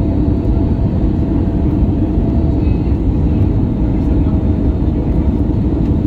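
Airbus A321neo's engines and airflow heard inside the cabin over the wing on short final approach: a loud, steady low rumble with a faint steady hum running through it.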